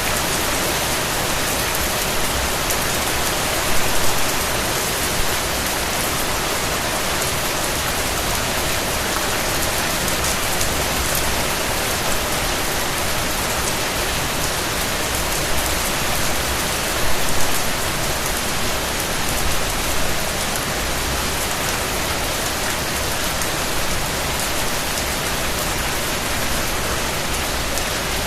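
Steady rain falling and pattering on surfaces, an even hiss of many drops, swelling briefly louder twice.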